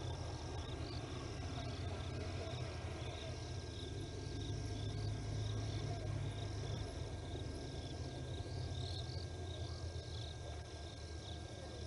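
Night insects, likely crickets, chirping in short repeated calls over a steady low hum.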